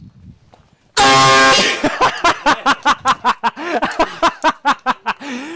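Hand-held canned air horn giving one loud blast about a second in, lasting about half a second, followed by a run of laughter.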